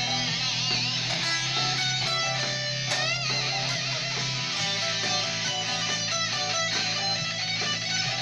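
Solid-body electric guitar played in a quick run of single notes, with a wavering, vibrato-like bend about three seconds in.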